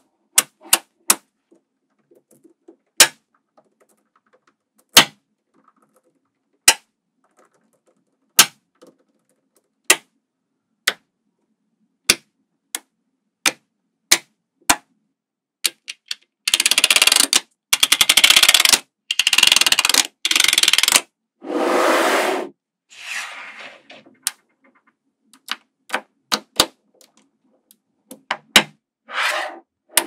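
Small magnetic balls snapping together with sharp single clicks, one every second or two, as blocks of balls are pushed into place. About halfway through comes several seconds of dense rattling and scraping as a plastic card is pressed and drawn across the rows of balls, then single clicks again near the end.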